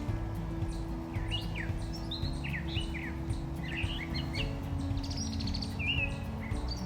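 Small songbirds chirping and twittering in short bursts throughout, over soft acoustic background music with long held low notes.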